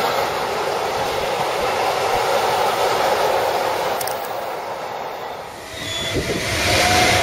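Freight wagons rolling past on the rails, a steady rumble of wheels on track. About four seconds in, the sound breaks off. Near the end an electric locomotive, a Siemens ES64U2 Taurus, approaches and grows louder, with a low rumble and a faint whine.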